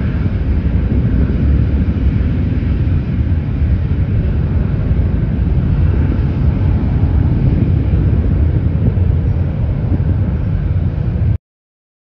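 The two Pratt & Whitney PW4158 turbofans of a climbing Airbus A300B4-622R at takeoff power, heard from the ground: a loud, steady, mostly low rumble that cuts off suddenly near the end.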